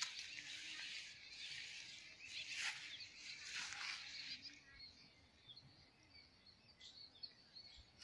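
Faint outdoor background of many small birds chirping, over a hiss that fades out about halfway through; a few scattered chirps go on after.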